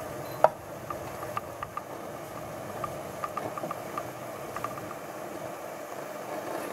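Diced ham frying in a non-stick pan over a gas flame: a steady low hiss with scattered small ticks and pops, and one sharper click about half a second in.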